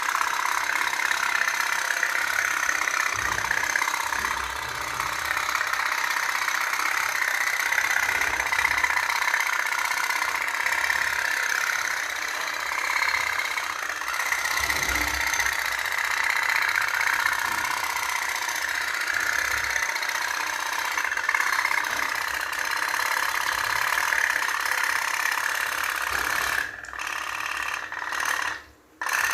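Toy pop-pop (putt-putt) boat's steam engine putting rapidly and steadily. The sound drops out briefly a couple of times near the end.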